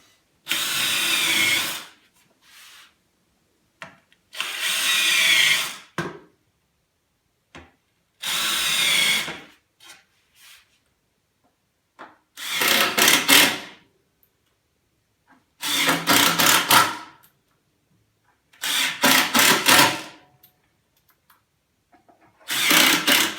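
A power drill running in seven short bursts of about a second and a half each, with pauses between. The first three have a rising whine, and the last four have a fast rattle.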